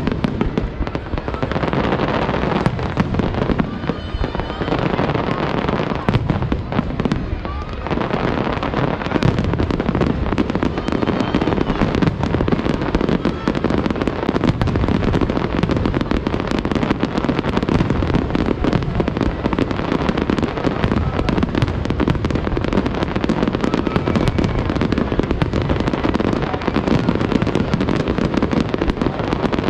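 Fireworks going off in a rapid, continuous barrage: many bangs and crackles in quick succession with no pauses.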